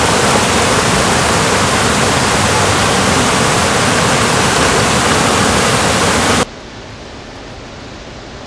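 Steady rush of water pouring over concrete spillways into a trout-farm raceway. About six and a half seconds in it drops suddenly to a much quieter, duller hiss.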